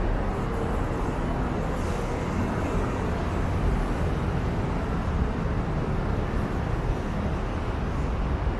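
Steady low rumble of city traffic and street ambience, with no distinct events standing out.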